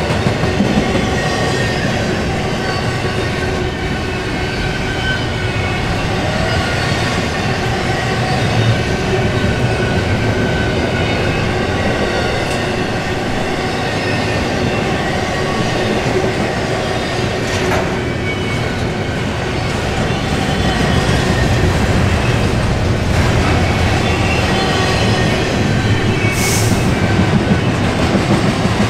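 Double-stack intermodal container cars rolling steadily past: a continuous rumble and clatter of steel wheels on the rails, with a thin wheel squeal running through it and a clank now and then.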